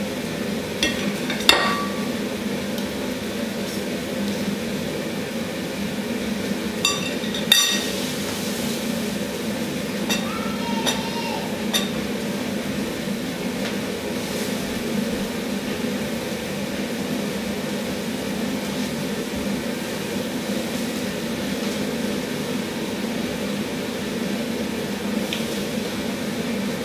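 A fork and a metal skewer clinking against a plate as grilled kebab pieces are pushed off the skewer. There are a few sharp, ringing clinks in the first dozen seconds, over a steady low hum.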